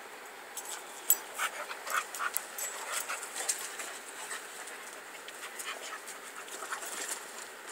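A dog panting, with a run of irregular sharp clicks and rustles that is busiest in the first few seconds and thins out toward the end.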